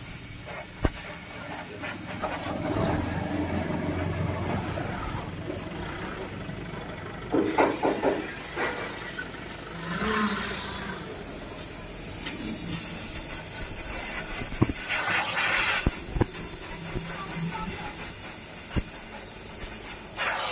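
Gas welding torch flame hissing steadily as a filler rod is melted onto the joint of a stand fan's pole and metal base, with a few sharp metallic clicks and knocks along the way.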